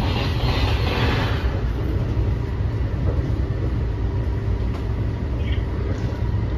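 Inside an NJ Transit multilevel passenger coach: the steady low rumble of the train running on the rails. A higher hiss fades out in the first second and a half.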